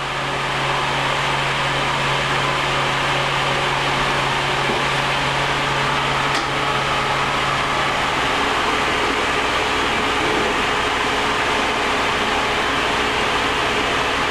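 Diamond-blade core saw for splitting drill core running, a steady loud whirring noise; a low hum under it drops out about eight seconds in.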